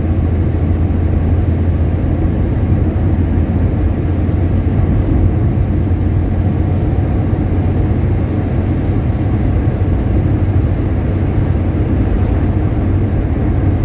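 Steady low drone of a 1961 Rover P4 100 cruising, its straight-six engine and tyre noise heard from inside the cabin.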